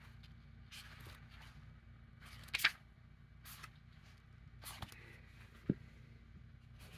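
Pages of a small paperback book flipped through by hand: a few soft papery rustles, the sharpest about two and a half seconds in, then a light click near the end as the book is set down on the stack.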